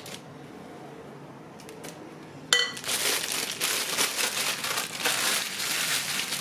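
Thin plastic piping bag crinkling as it is handled and filled with whipped cream scooped in with a silicone spatula. Fairly quiet for the first couple of seconds, then a short clink about two and a half seconds in, after which the crinkling of the plastic goes on steadily.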